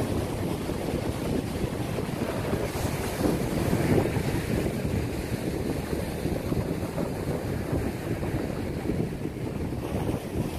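Wind blowing across the microphone over the steady wash of surf breaking on the beach.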